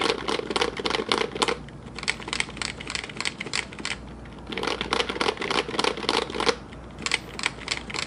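Fast typing on an HHKB Pro 3 Topre-switch keyboard (stock domes and coils with MX sliders) fitted with Cerakey ceramic keycaps on the top two rows and plastic keycaps on the bottom rows: keystrokes in quick clusters. Two stretches, at the start and about halfway through, carry a deeper undertone under the clacks, with short breaks in the typing just after four seconds and near seven seconds.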